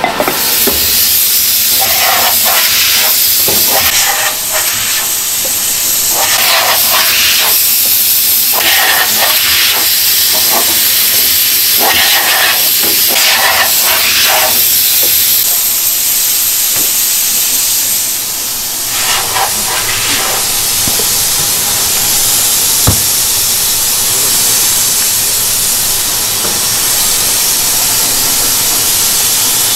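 A loud, steady hiss of rushing air, with short, irregular bursts of scraping and rubbing as unfired clay earthenware pots are handled and wiped.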